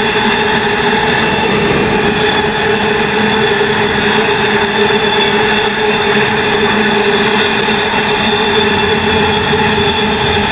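Iron ore train wagons rolling past on steel rails: a steady, loud rolling noise with a continuous whine of several held tones from the wheels on the track.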